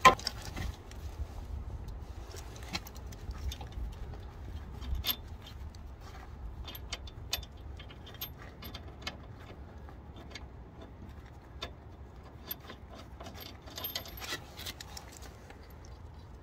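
Irregular light metallic clicks and clinks of hand tools and a bolt being handled at a car's rear suspension arm, over a low steady rumble.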